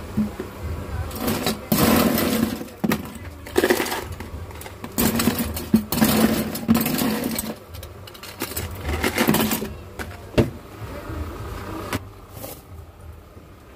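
Clear plastic cups handled close to the microphone, crinkling and rattling in irregular bursts with a few sharp clicks, over a steady low hum.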